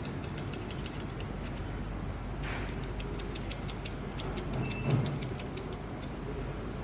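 Machine-shop work on an engine block: a steady machine hum under a quick series of light metallic ticks and clicks, with one heavier thump about five seconds in.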